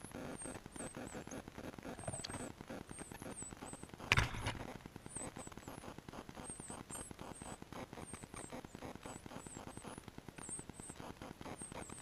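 Northern cardinal nestlings begging at the nest with rapid, very high, thin chirps, several a second, as the female feeds them, over a steady crackling rustle. A single loud thump about four seconds in.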